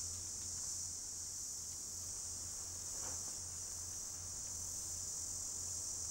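Steady, high-pitched chorus of insects, unbroken throughout, over a faint low hum.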